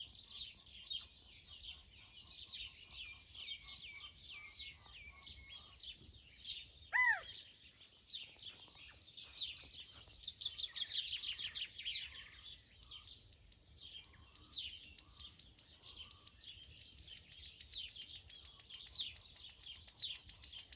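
Dawn chorus of many small birds chirping rapidly and continuously. About seven seconds in, one louder call stands out: a single note sliding downward in pitch.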